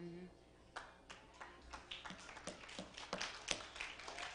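Scattered hand clapping from a small congregation, irregular claps several a second. A held sung note ends right at the start.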